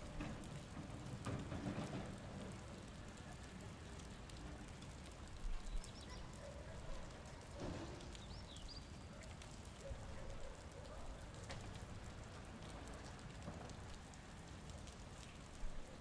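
Rainwater dripping and pattering onto surfaces after rain, over a steady low background rumble, with a few short bird chirps about six and eight seconds in.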